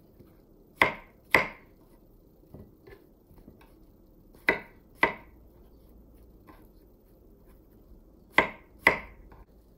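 Kitchen knife slicing white button mushrooms on a wooden cutting board: three pairs of sharp knocks of the blade hitting the board, each pair a few seconds apart, with a few fainter taps in between.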